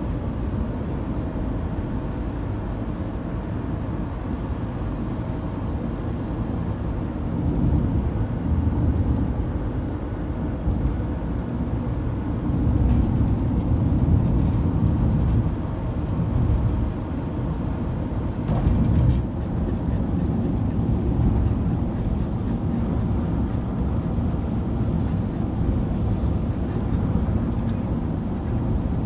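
Ford Transit van on studded tyres driving at a steady speed, heard from inside the cab: a constant low rumble of engine and road noise that swells and eases slightly, with a couple of faint brief clicks past the middle.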